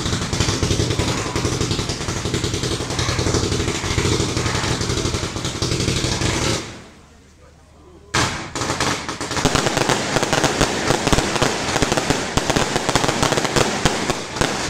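Fireworks: a fan of gold-tailed comets launching from a multi-shot barrage with a continuous rushing roar. The roar fades about six and a half seconds in. From about eight seconds, dense rapid cracking and popping of shots and crackling bursts follows.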